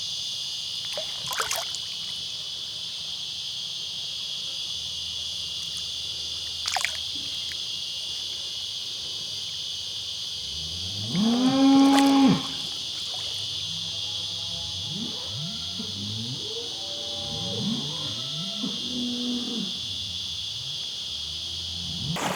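Cattle mooing: one loud, long moo about eleven seconds in, then several quieter moos, over a steady high drone of insects.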